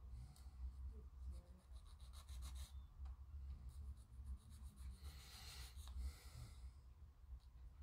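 Hand file rasping on a small plastic model-kit part in faint, quick strokes, with a longer rub about five seconds in: the part is being shaved down so that it will fit.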